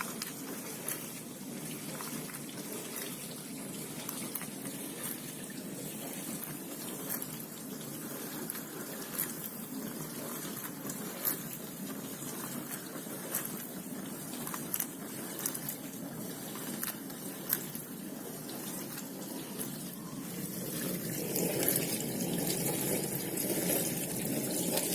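Hotpoint inverter dishwasher running its wash cycle, water circulating and spraying inside the closed tub as a steady muffled swish with scattered light ticks. It grows louder about four seconds before the end.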